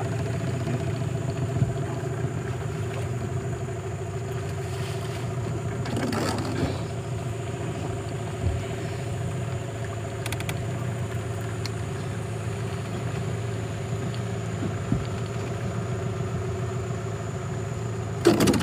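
Small boat's engine idling steadily, with a few short knocks and scrapes, the loudest just before the end.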